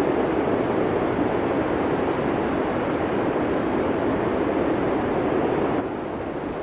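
Steady rushing blizzard wind. Near the end it cuts suddenly to a quieter stretch of wind with more hiss in it.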